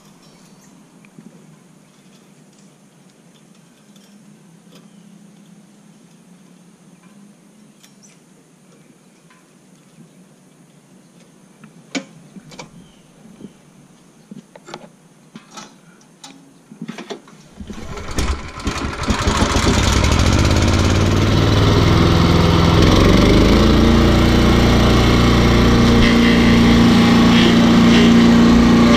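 Small gasoline engine of a walk-behind stump grinder: a run of clicks and knocks, then the engine starts about two-thirds of the way in and runs steadily, its pitch rising a little as it speeds up.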